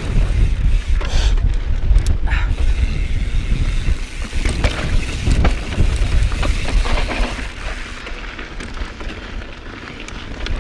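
Mountain bike rattling and rumbling down a rocky dirt trail at speed, with scattered knocks from the tyres and frame over rocks. Wind buffets the action camera's microphone, adding a heavy low rumble, and the sound eases a little about eight seconds in.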